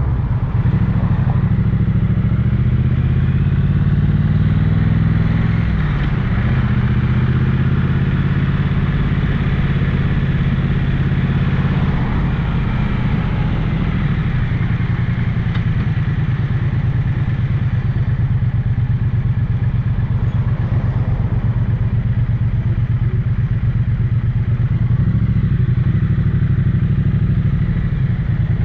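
Triumph Bonneville 900cc parallel-twin motorcycle engine and exhaust running under way at steady moderate revs. The note dips and changes pitch about six seconds in, like a gear change, then settles again.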